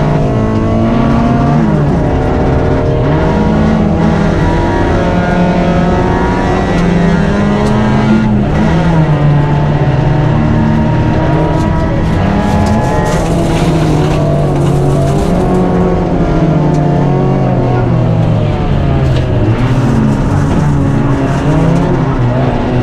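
Rally car engine heard from inside the cabin on a gravel stage, revving hard, its pitch climbing and dropping again and again as the driver shifts gears and lifts for corners.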